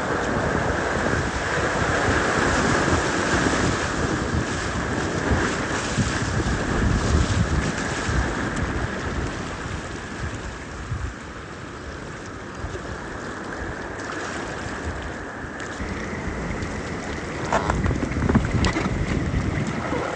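Fast, swollen river water rushing around a packraft, with wind buffeting the microphone. The noise eases after about ten seconds, and a few sharp knocks come near the end.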